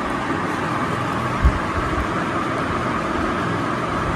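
Steady, even background noise, like a running room appliance, with one soft low thump about a second and a half in.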